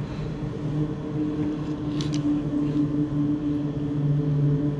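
A steady low machine hum, even and unchanging, with a brief faint click about two seconds in.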